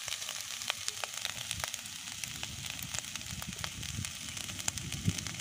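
Leftover rice sizzling as it fries in a kadai over an open wood fire. A steady hiss is dotted with frequent small crackles and pops.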